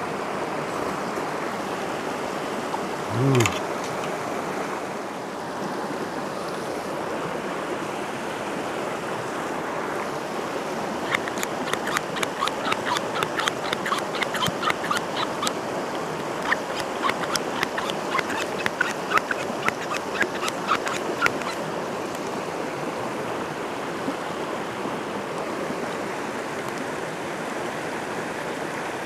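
A mountain river rushes steadily over rocks. About three seconds in comes one short low vocal sound. Through the middle, for about ten seconds, a quick run of clicks and short squeaks sounds from the hand-worked Purisoo portable purifier bottle as it draws river water.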